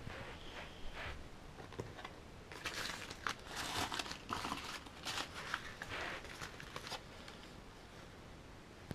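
Paper crinkling and rustling in a burst of a few seconds in the middle, as crumpled scraps of the lettering transfer's backing sheet are gathered up by hand.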